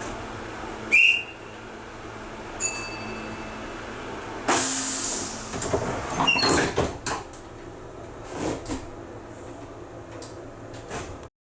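Kintetsu 12200 series limited express train's doors closing: a short whistle about a second in, a loud hiss of air at about four and a half seconds, then a run of thuds and clunks as the doors shut, over the steady hum of the standing train.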